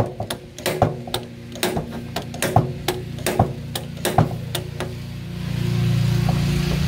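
Hammer blows on a thick steel car body panel, a little more than one a second for about the first four and a half seconds, each with a short metallic ring. A steady low hum runs underneath and grows louder near the end.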